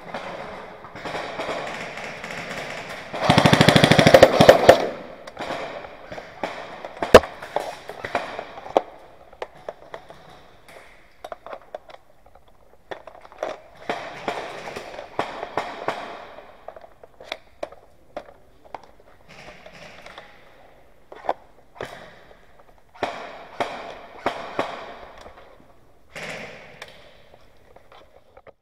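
Airsoft gun firing a rapid full-auto burst of about a second and a half, a few seconds in. Single sharp clicks and shuffling noise follow.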